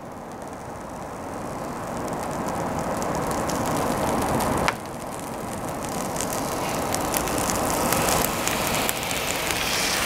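Protective plastic film being peeled off a PC case's glass side panel: a continuous crackling hiss that grows gradually louder, with a sharp click about halfway through.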